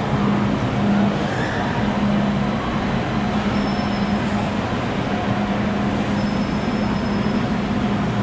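MTR Disneyland Resort Line train at a station platform: a steady rumble with a low hum that fades in and out.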